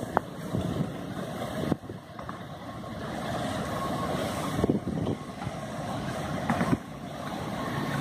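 Strong storm wind gusting, rumbling on the microphone and rising and falling with the gusts, with a few brief thumps of wind buffeting.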